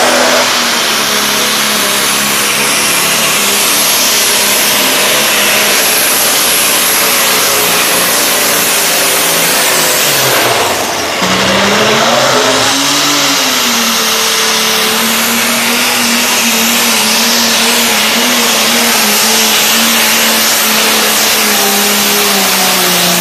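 Turbocharged diesel engine of a Pro Stock pulling tractor running flat out under load, a loud, steady high drone. About halfway through the note drops away briefly, then climbs back up and holds. It falls off near the end.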